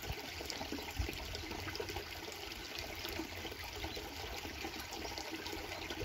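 Shallow stream trickling steadily over stones.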